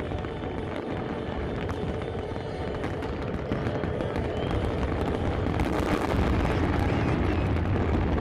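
A fireworks display crackling and booming over a crowd, with music playing faintly beneath it. The noise grows louder about halfway through.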